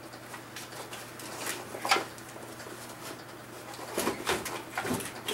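A few scattered light clicks and knocks of hand work on car parts: one sharper knock just before two seconds in and a cluster of them in the last second and a half, over a faint steady hum.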